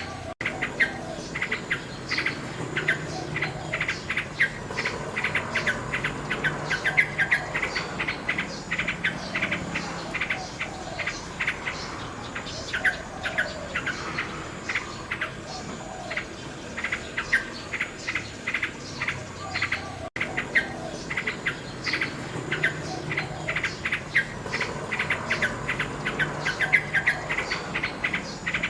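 Nightingale singing: dense runs of rapid, repeated short notes and trills, with a brief dropout about twenty seconds in.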